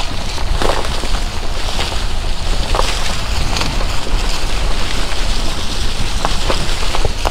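Car driving slowly along a rough dirt track: a steady low rumble of engine and tyres with wind buffeting the microphone, and a few short knocks along the way.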